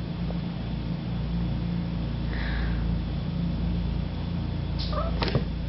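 Trailer-mounted pressure washer running, a steady low engine drone, while its lance sprays water onto the paving.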